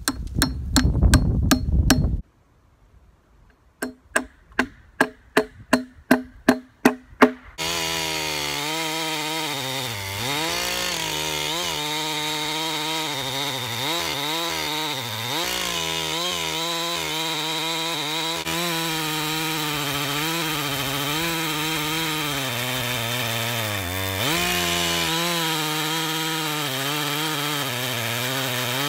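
A hammer driving nails into a board on an ash log: quick strikes for about two seconds, then after a short pause about ten more strikes, growing louder. About seven and a half seconds in, a 372XP-type two-stroke chainsaw takes over, ripping lengthwise along the log at a steady speed, its pitch dipping under load a few times.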